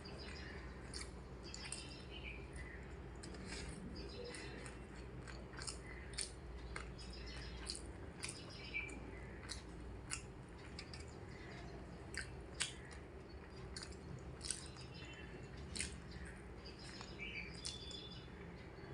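A person eating: soft chewing and mouth noises with scattered small sharp clicks, over a low steady hum, with a few faint high chirps now and then.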